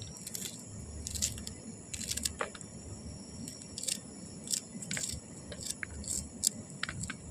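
Small knife cutting red onion and green chilli on a disposable paper plate: short, crisp cuts at irregular intervals, roughly two a second.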